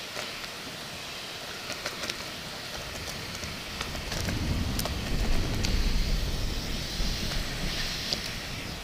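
Steady rain hiss with scattered drop ticks, and a low rumble of thunder that swells about four seconds in and fades again near the end.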